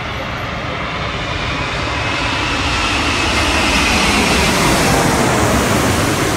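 Emirates Airbus A380's four jet engines on final approach, passing low overhead. The engine noise builds steadily to its loudest about five seconds in, with a faint high whine in it midway.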